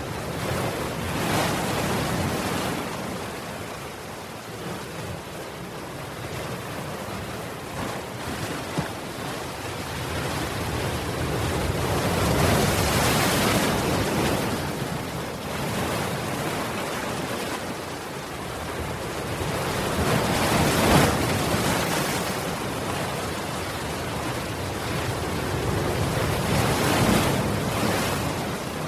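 Ocean surf: waves breaking and washing in, a steady rush that swells in slow surges every several seconds, loudest about two-thirds of the way through.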